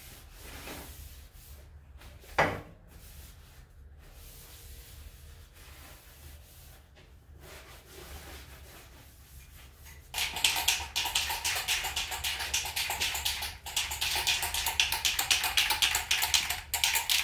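Cloth rustling and rubbing in rapid strokes, starting suddenly about ten seconds in and lasting about seven seconds, as a rag or tack cloth is handled and worked. A single sharp knock about two seconds in.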